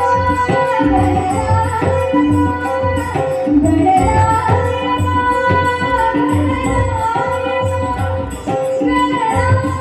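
A woman singing a Marathi devotional song live into a microphone, her melody gliding over a held accompanying note, with a regular drum beat underneath.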